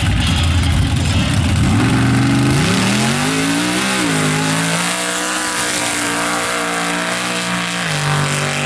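Mud racing truck, an early Ford Bronco on small tires, running flat out down a mud pit with its tires slinging mud. A deep rumble at first gives way to the engine revs climbing steeply. The revs dip briefly about four seconds in, climb again and hold high, then drop near the end as it lifts off.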